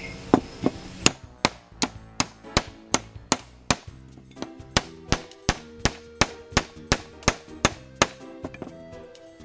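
Steel hammer striking a chisel against a rusted, seized steel pipe wrench in a steady run of ringing metallic clangs, about three blows a second, knocking the packed rust loose.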